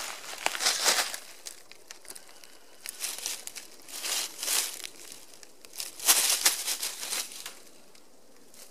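Dry fallen leaves crunching and crackling in irregular bursts as a cat rolls and paws in them, loudest about six seconds in.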